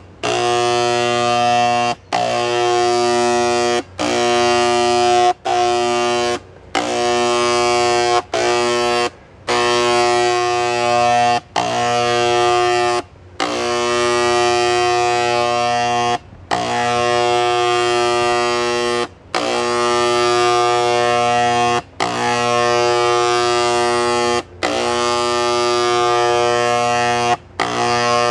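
Harbor Freight electric handheld paint sprayer spraying stain, its pump running with a steady buzz. It is triggered on and off over a dozen times, in bursts of one to three seconds with brief stops between.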